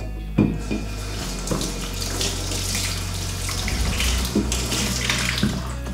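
Kitchen tap running into a sink as vegetables are rinsed under it, with a few knocks, the sharpest about half a second in.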